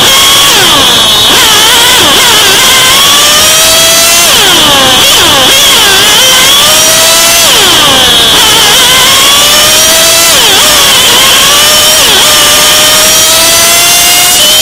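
Radio-controlled model racing car's small two-stroke engine, heard close up from on board. It revs up in long rising whines and drops sharply off the throttle, over and over through the laps.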